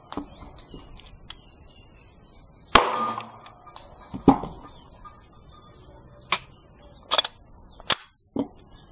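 Sharp metallic clacks and clicks of pistols being handled at a shooting bench. There are two louder clacks with a short ring about three and four seconds in, then three lighter, sharper clicks near the end.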